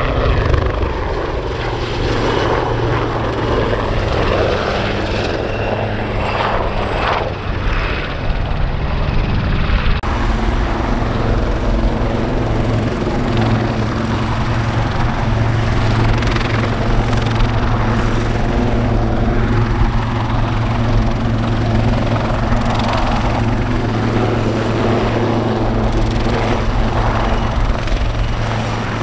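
Royal Navy AW159 Wildcat helicopter hovering low: a steady loud beat of the rotors over the twin-turboshaft engines' drone. About ten seconds in the sound shifts abruptly, and a steady high turbine whine comes in.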